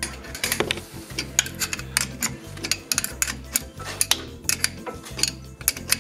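Hand ratchet wrench clicking in short irregular runs as a bolt is worked at the coil spring and shock absorber mount, with metal tool clinks in between. Background music plays underneath.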